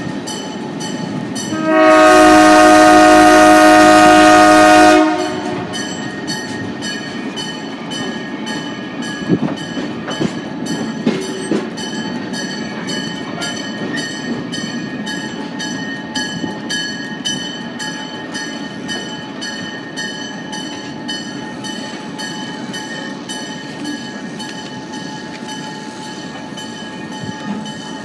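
Diesel locomotive horn sounding one long blast of about three seconds, several tones at once, starting about two seconds in. A train then keeps rolling with a steady rumble and scattered clicks from the wheels on the rails.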